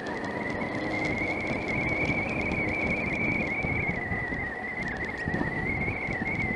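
Triumph Tiger 900 Rally three-cylinder motorcycle ridden at low speed along a gravel track: engine running and tyres rolling over loose stones, with a steady high whine that wavers slightly in pitch and scattered ticks of gravel.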